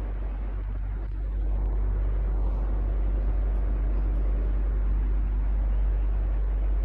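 Electric fan running steadily: a low motor hum under an even rush of moving air, getting a little louder about a second and a half in.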